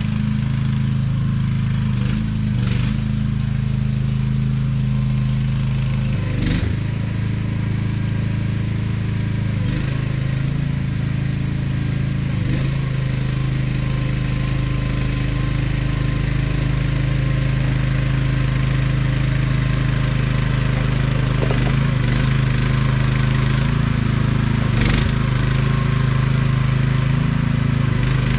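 AGT QH12R mini excavator's engine running steadily under work, with a few sharp knocks from the machine's working parts at irregular moments.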